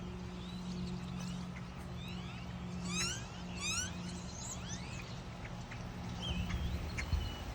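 Small birds chirping and calling, with two quick runs of rising notes about three seconds in, over a steady low hum.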